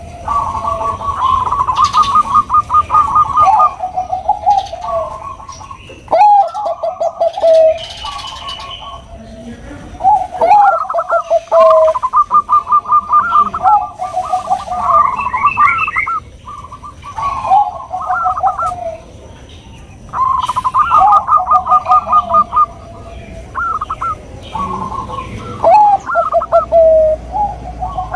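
Perkutut Bangkok (zebra dove) cooing: phrase after phrase of quick staccato coo notes that step down in pitch, with short pauses between the phrases.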